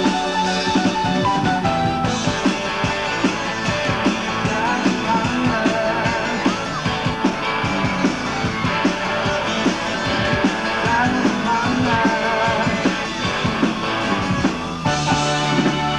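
Live rock band playing on stage, with drums, electric guitar and some singing. The music shifts to a new section about a second before the end.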